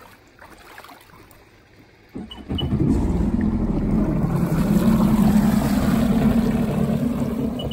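Personal watercraft (jet ski) engine coming in suddenly about two seconds in, then running loud and steady under throttle with a slight rise in pitch.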